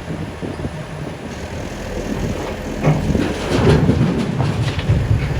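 Backhoe loader's diesel engine running, joined about three seconds in by louder, irregular crunching and crashing as the house's structure is broken and debris falls.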